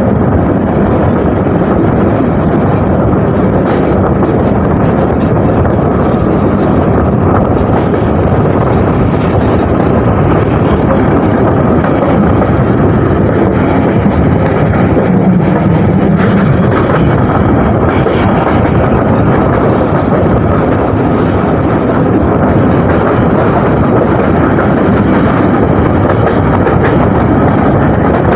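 Passenger train running at speed: a loud, steady rumble and rush of wheels and air, with wind buffeting the microphone.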